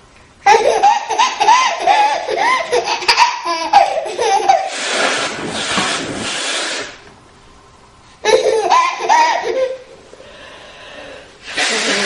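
Bursts of laughter, each followed by a long, noisy, unpitched nose blow that lasts about two seconds; this happens twice.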